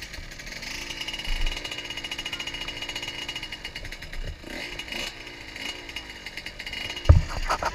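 Dirt bike engines running, with revs rising and falling, and a loud thump near the end.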